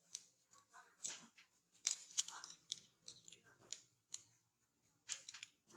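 Scattered small clicks, taps and scrapes of a mobile phone being taken apart by hand.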